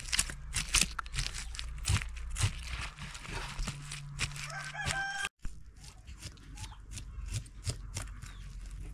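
A kitchen knife scraping and cutting along a whole carp on a wooden cutting board, in a quick run of short, sharp strokes. About halfway through, a chicken calls once.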